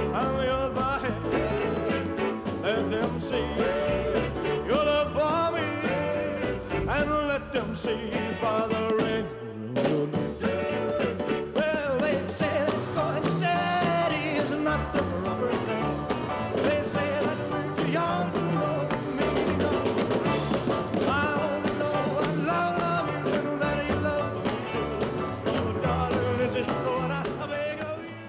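Rock and roll music with singing and a steady beat, dropping briefly about nine and a half seconds in.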